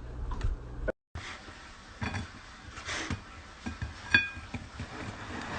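Kitchen clatter: light knocks and handling noise, with one ringing clink of a dish or utensil about four seconds in.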